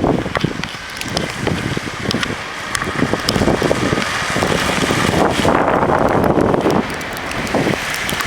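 Gusty wind buffeting the microphone, with scattered sharp clicks.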